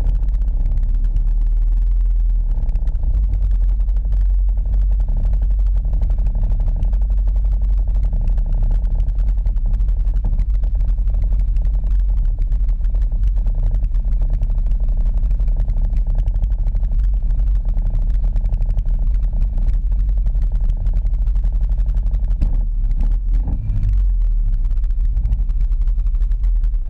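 ATV engine idling steadily, heard close up from a camera mounted on the quad's own front rack, with a deep, constant rumble.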